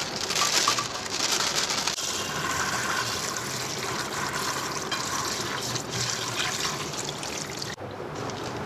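Water running from a kitchen tap and splashing into a sink, with two brief breaks where the sound cuts off for an instant.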